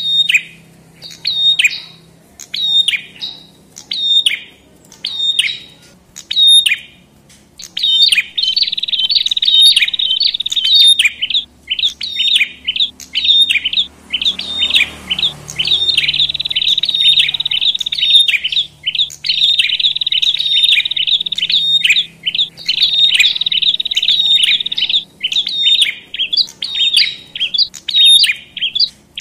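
Agitated calls of prenjak, small Asian warblers, from a bird-trapping lure recording. Sharp high chirps come about once a second at first, then after about eight seconds give way to a fast, almost continuous chattering trill, the alarmed racket meant to stir up other prenjak.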